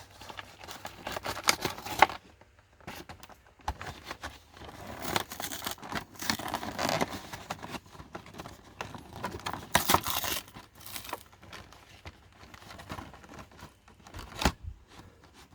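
A toy's cardboard blister card being peeled and torn open by hand, the plastic blister crinkling: irregular scratchy tearing and crinkling with short sharp snaps, loudest about 2 seconds and 10 seconds in.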